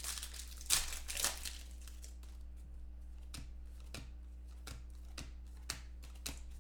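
A foil trading-card pack crinkles and tears as it is opened in the first second or so. Then 2014 Panini Contenders football cards are flipped through one by one, each giving a short click, over a steady low hum.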